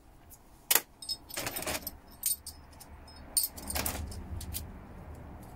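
Small metal relay parts clicking, clinking and scraping as relay switches are pulled apart by hand for their contacts and magnets: a few sharp clicks with short bursts of scraping between them.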